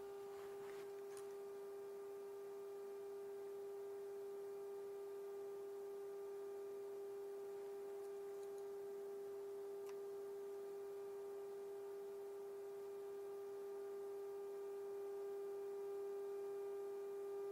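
Steady single-pitched test tone of about 400 Hz, the audio modulation of a 455 kHz signal-generator signal played through a GE 7-2877H radio's speaker during AM IF alignment. It grows slightly louder near the end.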